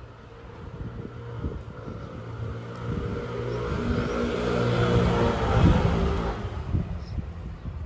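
A motor vehicle driving past on the street, its engine and tyre noise swelling to a peak about five to six seconds in, then fading.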